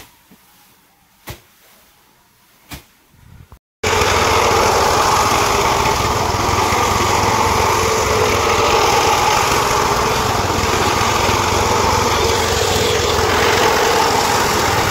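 Engine of a two-wheel walking tractor (power tiller) running steadily under load as it is driven over a thick layer of rice straw. It cuts in abruptly about four seconds in, after a few faint knocks.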